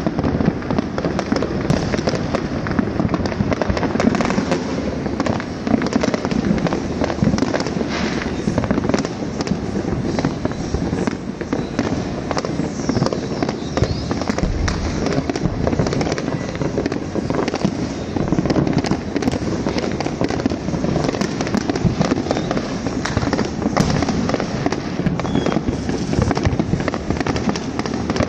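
Fireworks going off all around in a continuous barrage: many overlapping bangs and crackles merge into an unbroken din with no pause.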